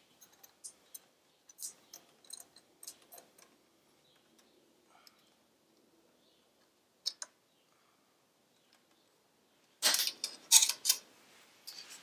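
Small metallic clicks and clinks as an Allen wrench and the steel exhaust-mounting springs on a motorcycle slip-on muffler are handled. The clicks are sparse at first, and a louder flurry of metal clinks comes about ten seconds in.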